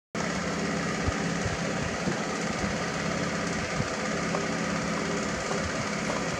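Steady mechanical hum with a few faint clicks and taps as a new oil filter is handled and threaded onto an engine's filter mount by hand.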